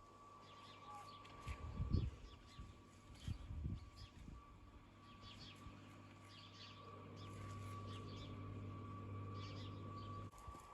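Small birds chirping in short scattered calls over a steady low hum that cuts off suddenly near the end, with a couple of dull thumps about two seconds in.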